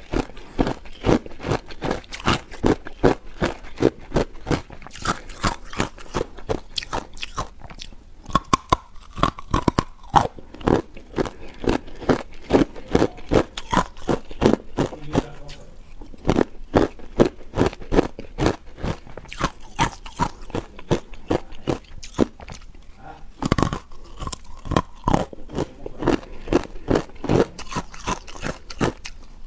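Hard ice coated in matcha powder being bitten and chewed: a quick, steady run of crunches, about two to three a second, with a few short pauses.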